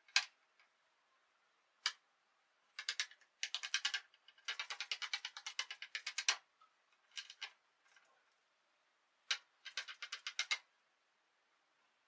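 Skeleton marionette tapping and clattering on a hard stage floor as it dances: two single knocks, then runs of quick taps about ten a second, the longest lasting about two seconds in the middle, with a last run near the end.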